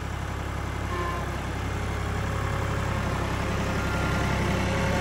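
Kioti compact tractor's diesel engine running steadily as the tractor creeps forward with its front loader, growing gradually louder.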